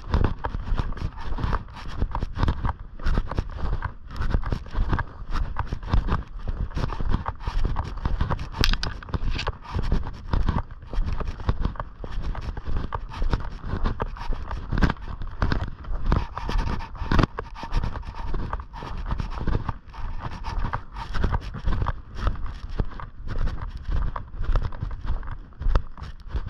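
Footsteps on a snowy, gravelly path, coming as a string of irregular steps over a constant low rumble.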